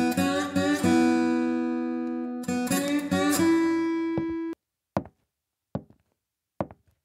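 Acoustic guitar playing two short strummed phrases, each settling onto a ringing chord; the second chord cuts off suddenly about four and a half seconds in. Then three short knocks, about a second apart.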